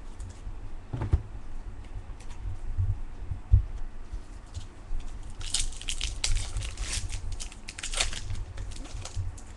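Crinkling and tearing of a foil trading-card pack wrapper being opened, with dense crackling about halfway through. Two dull bumps of handling come about one and three and a half seconds in.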